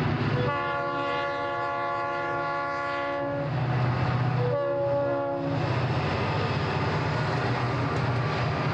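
Union Pacific diesel freight locomotives passing close by, sounding the air horn: one long blast of about three seconds, then a shorter one about a second later. Steady engine rumble and rail noise run under both.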